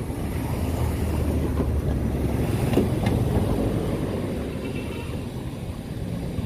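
A car passing close beside a moving bicycle: a low traffic rumble that swells to a peak about three seconds in and then fades, mixed with wind rumbling on the microphone.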